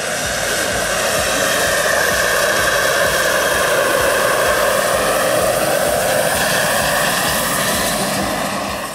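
Radio-controlled scale Hughes 500 helicopter flying a low pass: a steady high whine from its drive and rotors, growing louder over the first two seconds and holding there, its pitch shifting slightly as it goes by.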